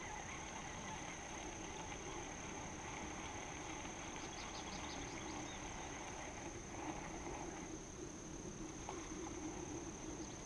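Faint outdoor ambience: a steady, high-pitched insect drone, such as a cricket or katydid, over a low background hiss.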